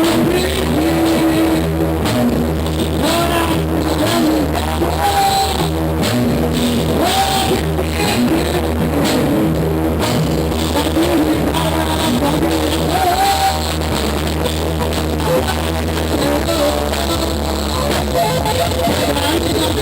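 A band playing rock music: drum kit keeping a steady beat under a bass line and guitar, with a melody line gliding over the top.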